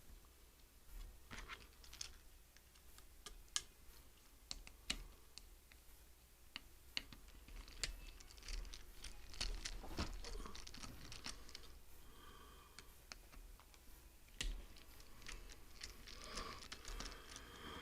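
Small Torx screwdriver clicking and ticking against the screws of a hard drive's circuit board as they are undone, with irregular light clicks of the metal drive being handled.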